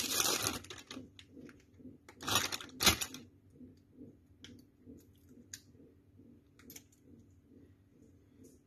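Plastic wrapping on a Kewpie mayonnaise squeeze bottle crinkling as it is cut and pulled off, with two louder rustles about two to three seconds in. After that, quieter scattered clicks as the soft bottle is squeezed.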